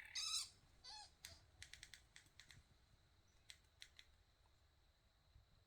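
Wild birds calling at a feeding spot: a short harsh call at the start and a brief falling note about a second in, then a quick run of sharp clicks and two more clicks a little later, all faint.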